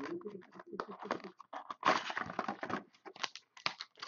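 A cardboard trading-card box being opened and its inner tray slid out, with foil-wrapped card packs crinkling and rustling in irregular crackles, densest about halfway through.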